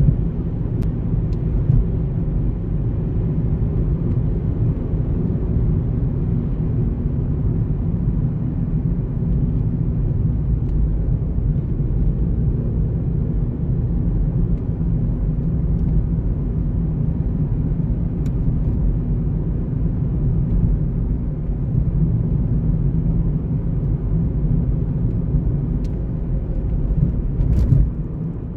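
Car driving through city streets: a steady low rumble of tyre and engine noise, with a short bump near the end.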